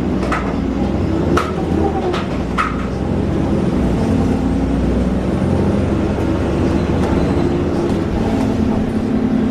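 Alexander Dennis Enviro400 double-decker bus under way, its drivetrain giving a steady droning tone over a low rumble. Several sharp rattles or knocks come in the first three seconds.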